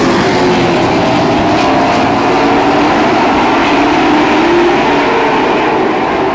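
A field of Outlaw Super Late Model stock cars racing by in a tight pack, their V8 engines sounding together as one loud, steady din with several overlapping, wavering engine notes.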